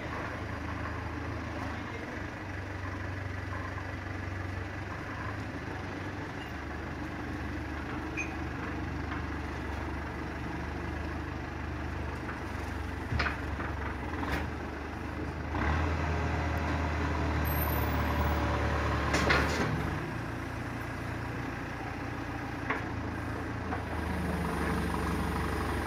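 Komatsu WB93R backhoe loader's diesel engine running steadily as the machine drives up. It gets louder for a few seconds past the middle, with a few short knocks.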